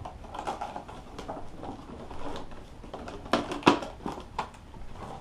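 Plastic packaging and small plastic parts being handled: a run of irregular rustles and clicks, with a cluster of sharper, louder clicks a little past halfway.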